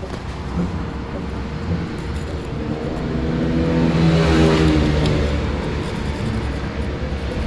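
Vespa T5 scooter's two-stroke engine running and revving, swelling to its loudest about halfway through and then easing back.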